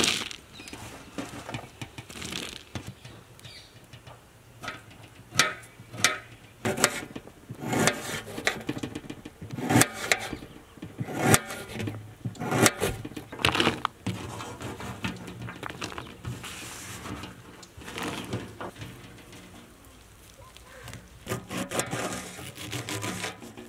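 Kitchen knife cutting vegetables on a cutting board: separate cuts through an onion, then a quicker run of chops through fresh coriander near the end.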